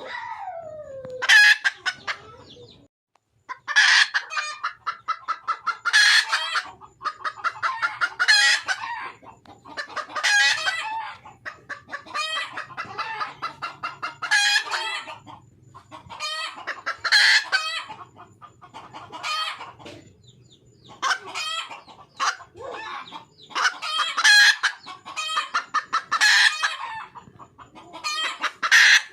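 Red junglefowl hen calling over and over, a rapid cackling phrase about every two seconds: a hen calling for a male.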